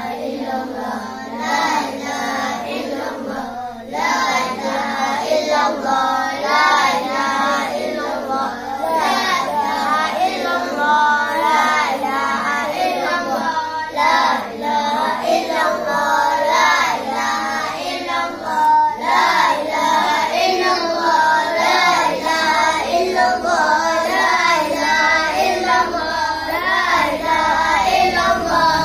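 A group of children chanting together in a sung melody, an Islamic devotional chant after the prayer. The voices carry on without a break and grow fuller a few seconds in.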